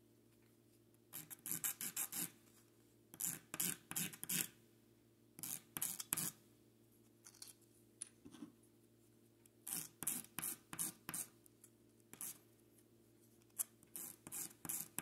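Ends of small wooden posts rubbed back and forth on a sheet of sandpaper, scratchy sanding strokes in short bursts of a few quick strokes with pauses between, starting about a second in. The ends are being sanded flat.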